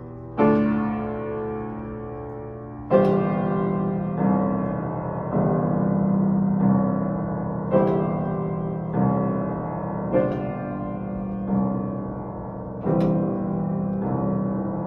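Piano playing slow, bell-like chords, one struck about every second and a bit, each left ringing into the next; a few chords land with stronger accents.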